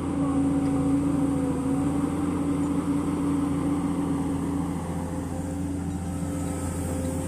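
Komatsu PC200 excavator's diesel engine running steadily while it works, a steady drone with a strong even tone that eases slightly about five seconds in.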